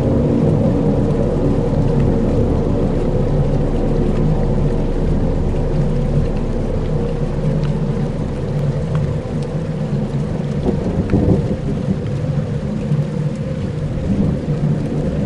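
Dark ambient soundscape: a deep, steady rumbling drone with sustained low tones, layered with a rain-and-thunder-like hiss and faint scattered crackles.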